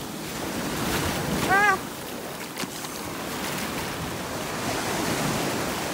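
Surf washing up and back over the sand in a steady rush of foamy water. About a second and a half in comes a short, high-pitched call.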